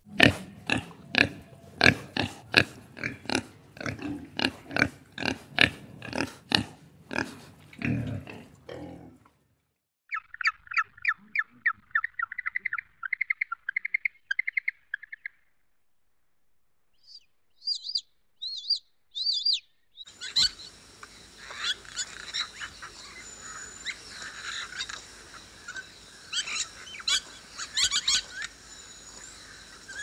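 Pig grunting: a steady series of short grunts, about two a second, for roughly the first nine seconds. After that come other animal calls: a fast run of high chirps, a few short high calls, and from about twenty seconds in a busy chorus of bird calls.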